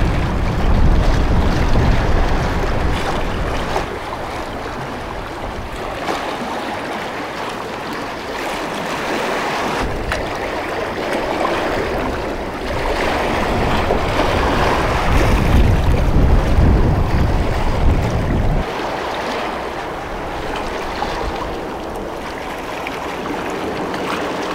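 Sea waves washing and splashing against concrete tetrapods of a breakwater, with wind buffeting the microphone in heavy low gusts, strongest in the first few seconds and again midway.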